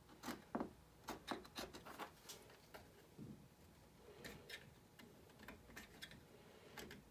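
Faint, irregular scrapes and clicks of a craft knife blade working against a hard 3D-printed plastic part.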